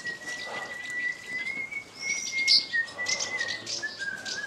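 Small birds chirping in short high bursts, busiest about halfway through, over a thin, steady high-pitched tone.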